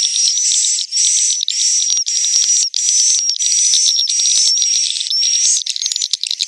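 Edible-nest swiftlet roosting calls: a loud, continuous run of high buzzing calls, each with a thin whistle through it, repeating roughly every two-thirds of a second. Near the end the calls break into quicker, shorter chirps.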